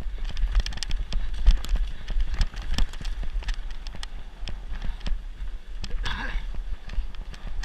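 Mountain bike descending a rough dirt singletrack at speed, heard from a camera riding on the bike or rider: a constant clatter of knocks and rattles as it runs over roots and rocks, over a deep wind rumble on the microphone. A brief higher sound about six seconds in.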